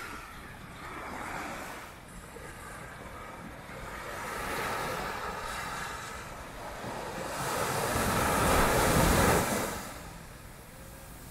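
Sea surf breaking and washing up the beach in surges, the loudest wave crashing in about eight seconds in and then dying away.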